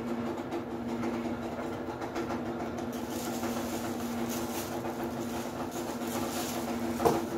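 A steady machine hum with a constant droning pitch, like a running household appliance or fan motor. A single short knock comes near the end.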